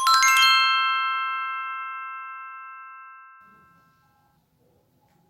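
A quick run of five or so bell-like chime notes, struck within half a second, ringing together and fading away over about four seconds.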